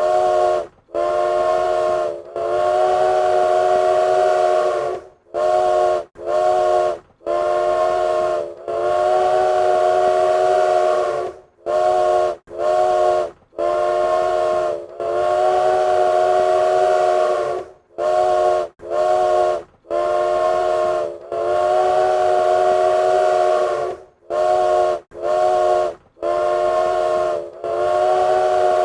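Train whistle sounding several notes at once, blown in a repeating pattern of two short blasts, a medium one and a long one, each blast cutting off sharply.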